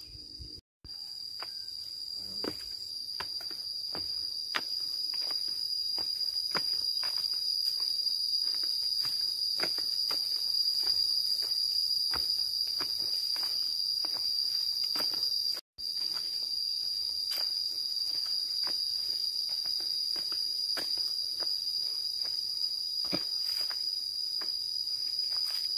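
Insects calling in one steady, unbroken high-pitched tone, with footsteps on a dirt path at about two steps a second. The sound cuts out completely twice for a moment, about a second in and about halfway through.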